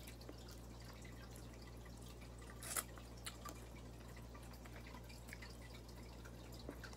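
Faint eating sounds from fried tilapia picked and eaten by hand: scattered wet clicks of lips and chewing, with one sharper click a little under three seconds in, over a steady low hum.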